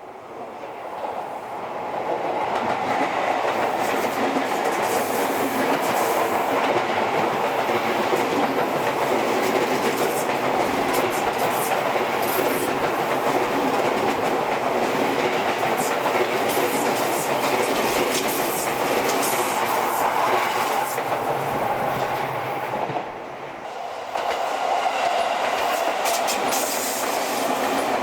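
A train passing close by: a steady rumble of wheels on rail with repeated clicking over the rail joints, building over the first couple of seconds. The sound dips briefly near the end and a similar train rumble resumes.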